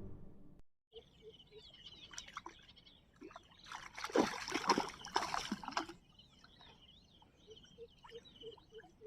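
Quiet outdoor sound: small birds chirping, and a couple of seconds of water trickling and splashing in the middle. Near the end comes a regular run of short low calls, about four a second.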